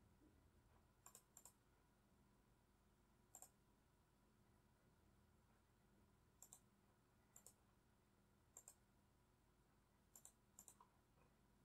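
Faint computer mouse clicks, several scattered through the stretch and many in quick pairs, over near-silent room tone.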